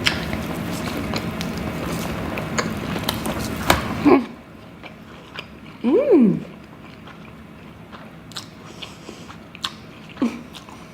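Close-miked eating: chewing and biting, loud and dense for about the first four seconds, then quieter wet clicks of chewing. A hummed 'mmm' of enjoyment rises and falls about six seconds in.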